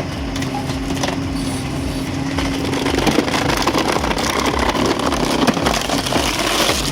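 Tajfun RCA 400 Joy firewood processor running, with a steady mechanical whine through the first three seconds. After that, dense, irregular clattering and cracking of the machine working through logs.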